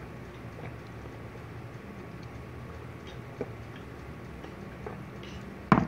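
Steady low room hum with a few faint ticks, broken near the end by one short, sharp smack.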